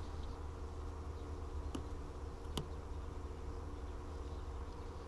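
Steady low hum with a faint buzzing drone held on a few steady tones, and two light clicks a little under a second apart near the middle.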